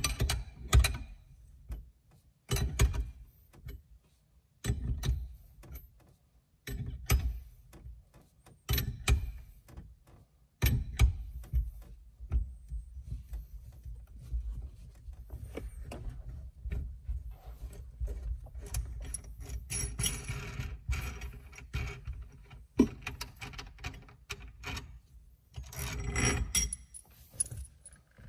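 Metal clicks and clinks of a wrench turning the nut on a steering-wheel lock-plate compressor tool, one stroke about every two seconds at first. About halfway through it gives way to a denser run of light clicking and rattling as the loosened tool is worked on the threaded stud.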